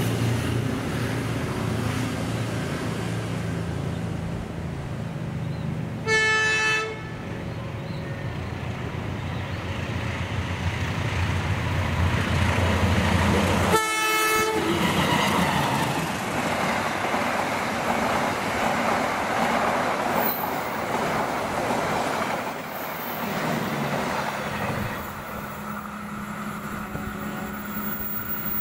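Horn and engine of a Tata Ace pickup converted into a rail inspection lori: the engine runs with a steady low hum, the horn gives two short toots about six and fourteen seconds in, and after the second toot the hum gives way to a broad rushing noise.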